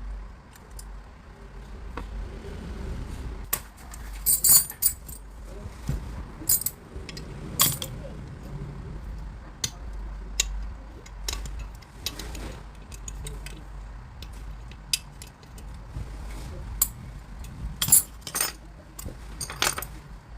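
Metal tools and parts clinking and knocking now and then, some strikes ringing brightly, over a low steady rumble.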